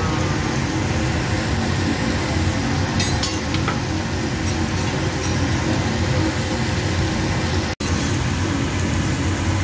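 Steady rumble of the ventilation hood over a teppanyaki griddle, with a few light clinks of a metal spatula on the steel griddle about three to five seconds in. The sound cuts out for an instant near the end.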